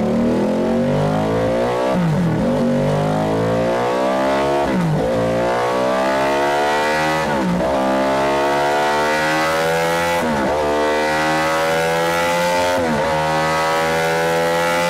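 Ducati Panigale V-twin superbike with a Zard exhaust running hard, its pitch climbing steadily and dropping sharply about every two and a half seconds, five times in all.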